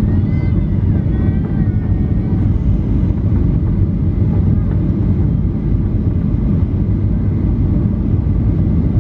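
Steady low rumble of a Boeing 737's engines and airflow, heard inside the passenger cabin in flight. A faint voice is heard over it in the first couple of seconds.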